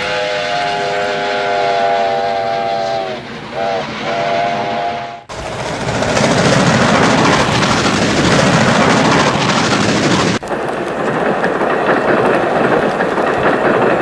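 Steam locomotive chime whistle sounding several tones at once in a long blast that sags in pitch at its end, then a short toot and another held blast that cuts off suddenly. Loud rushing train running noise follows, changing abruptly about halfway through to a slightly quieter steady rolling sound.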